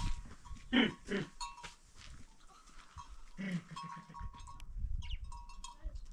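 Goats bleating: two short bleats about a second in and a longer one a little past the middle, with a low rumble in the second half.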